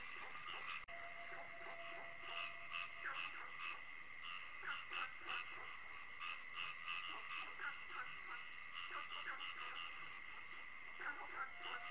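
Faint chorus of short, irregular animal chirps, several a second, over a steady high-pitched hum, like a night-time ambience track. A faint steady tone sounds from about a second in to about three seconds in.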